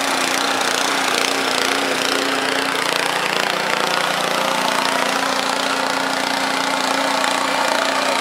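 Sno-Tek two-stage snowblower's small gas engine running steadily under load while the machine throws snow.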